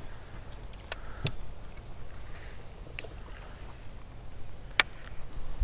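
Gear and handling knocks on a small fishing boat: four sharp clicks and knocks over a low steady rumble, the loudest about five seconds in.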